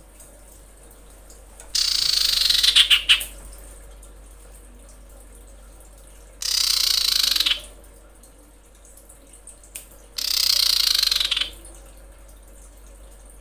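Female common iora (cipoh) giving three rasping, hiss-like calls, each a little over a second long and a few seconds apart. This is the female's call to a male.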